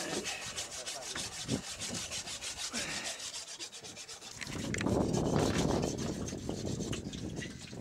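A blade sawing and rasping through a manta ray's tough skin and cartilage in quick, even strokes. About four and a half seconds in, a louder rushing noise takes over for a couple of seconds.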